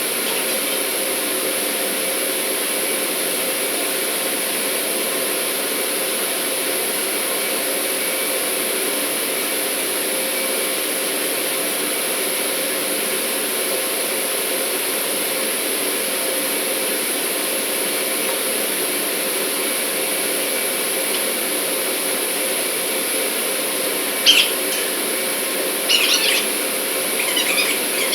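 Steady drone of running industrial machinery, even and unbroken, with a few short high squeals near the end.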